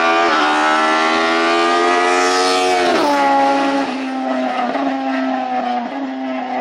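BMW 2002 hillclimb car's 2.0-litre four-cylinder Formula 2-derived racing engine running at high revs as the car passes. The note climbs slowly, drops sharply about three seconds in, then holds steady at a lower pitch.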